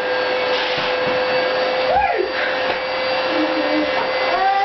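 Household vacuum cleaner running steadily: a constant high whine over a rushing hiss. Brief voice sounds rise over it about two seconds in and again near the end.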